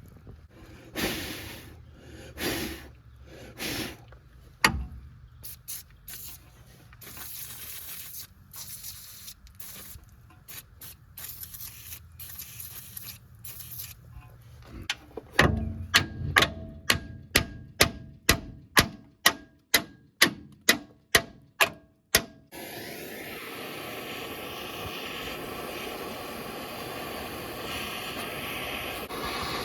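Short hisses of aerosol penetrant spray and scraping, then a rapid run of about fifteen ringing hammer blows, steel on steel, about two a second, on a seized suspension bolt. About seven seconds from the end a torch is lit and burns with a steady hiss.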